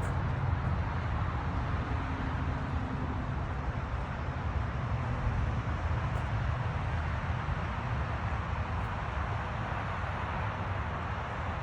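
Steady low rumble and road noise of a vehicle on the move, unbroken throughout.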